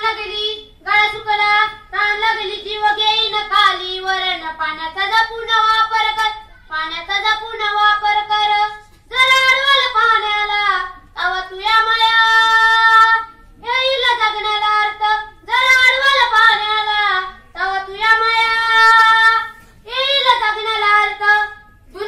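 A boy singing solo into a microphone, unaccompanied, in short phrases with brief pauses between them.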